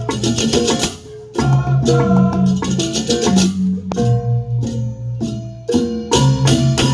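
Balinese balaganjur gamelan playing: interlocking bronze gong-chime melodies over low gong tones, with cymbal crashes and drums. The music comes in phrases, broken by brief drops about a second in and again near the end.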